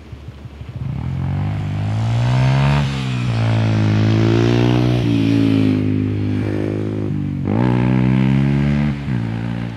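A loud engine accelerating, its pitch rising. It dips about three seconds in, drops sharply and climbs again near the end, then falls back.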